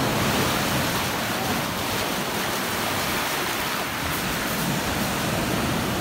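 Sea waves breaking and washing in over rocks, a steady rush of surf.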